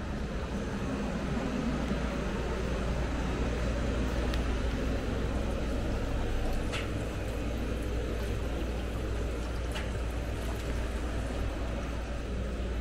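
Small fountain spraying and splashing into a galvanised stock-tank pond, over a steady low rumble, with a few faint clicks.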